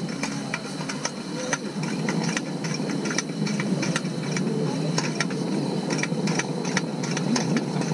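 Coleman lantern burning with a steady hiss after its new mantle has been lit, with irregular metallic clicks and rattles from hands working its pump and valve.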